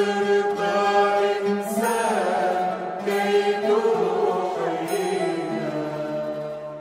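A woman singing a slow, chant-like Arabic Christian hymn in phrases, over a sustained low accompaniment.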